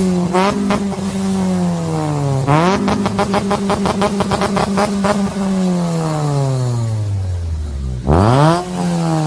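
Car exhaust fitted with a 'fart can' muffler, buzzing loudly as the engine revs. Its pitch drops and climbs again about two and a half seconds in, sinks slowly over several seconds, then shoots up in a sharp, loudest rev near the end.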